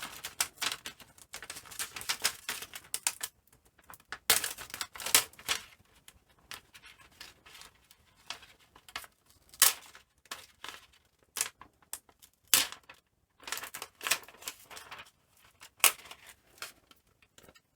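Irregular clicks, taps and scrapes of a laptop's plastic and metal parts being handled and pried apart during disassembly, with short quiet gaps between.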